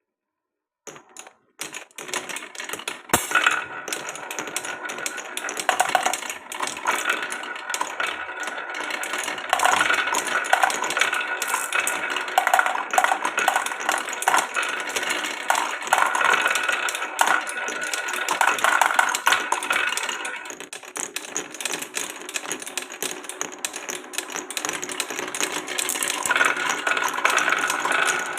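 Many marbles clattering and rolling down a wooden HABA marble run, a dense stream of clicks and rattles that starts about a second in.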